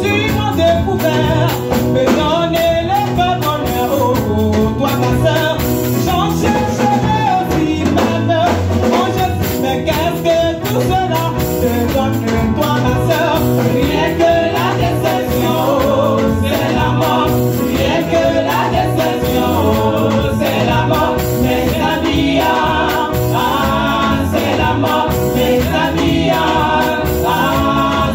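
Gospel choir of mixed voices singing into microphones and amplified through loudspeakers, over a steady percussion beat.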